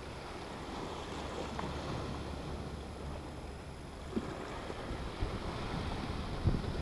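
Sea surf washing and breaking against the rocks just below, with wind rumbling on the microphone. A few soft knocks come in the second half.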